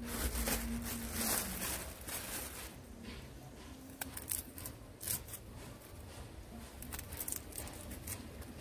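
Rustling and light, irregular clicks of hands handling food and utensils, busiest in the first two seconds, then sparse clicks.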